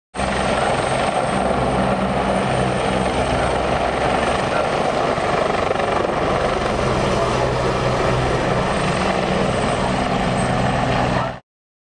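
Aircraft running steadily: a loud, even drone with a low steady hum underneath, cutting in and out abruptly.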